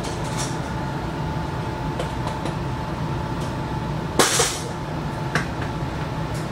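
Steady low rumble and hum inside a passenger train carriage moving slowly out of a station, with scattered light clicks and knocks and one louder clunk about four seconds in.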